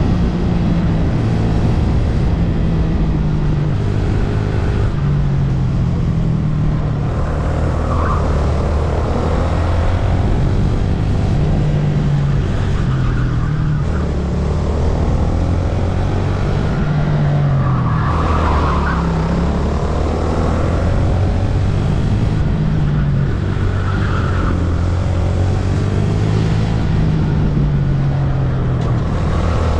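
VT250 rental go-kart engine heard on board at speed, its revs climbing and dropping over and over as the kart accelerates and slows for the corners.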